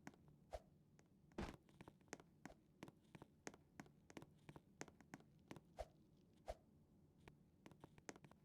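Near silence with faint, irregular clicks and taps, two or three a second, over a low steady hum.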